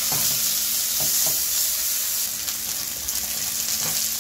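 Chilli paste and onions sizzling steadily in hot oil in a wok. A wooden spatula stirs them, scraping the pan a few times.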